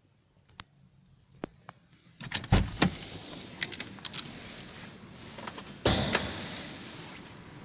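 Clicks and thumps from the driver's door and interior trim of a Toyota Avanza being handled: a few light clicks, two heavy thumps about two and a half seconds in, and a louder bump near six seconds, over a steady hiss of background noise.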